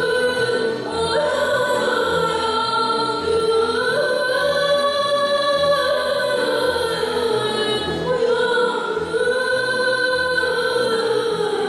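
Two girls singing long held notes that step up and down in pitch, accompanied by a youth symphony orchestra.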